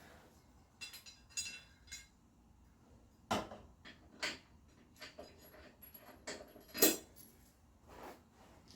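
Metal clinks and clanks of mower blades, bolts and tools being handled under a mower deck during a blade change: scattered knocks, some ringing briefly, the loudest about three and a half and seven seconds in.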